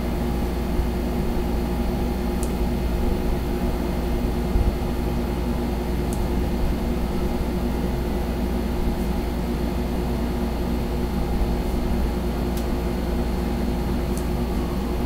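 A steady, unbroken low hum of background machinery, such as an air conditioner or fan running, with a few faint high ticks.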